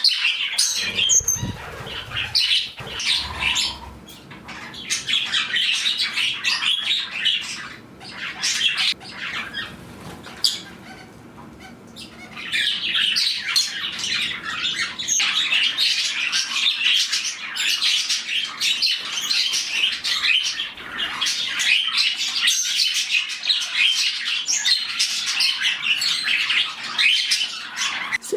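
A flock of pet budgies and other small parrots chattering, chirping and squawking all together, with wing flutters in the first few seconds. There is a brief lull about ten seconds in, then the chatter picks up again. It is a little bit noisy as the flock settles toward bedtime.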